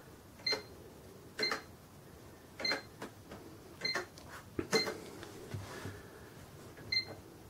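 Keys pressed on a Sam4S NR-510R cash register's keyboard, each press a short click, most with a brief electronic beep. There are about six presses, roughly a second apart, as a name is keyed in.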